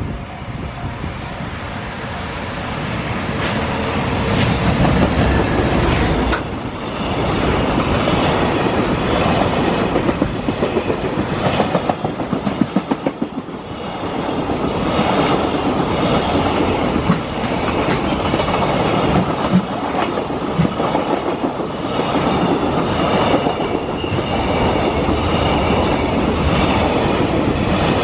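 Freight train hauled by a JR Freight EF210 electric locomotive passing close by, its wheels clacking in a steady rhythm over the rail joints. It grows louder over the first few seconds and carries on loud, with a short dip about halfway through.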